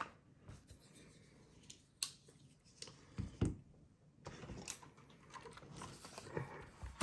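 A few light, sharp clicks and soft handling noise of small hard plastic pieces, keycaps and their packaging, being moved and set down.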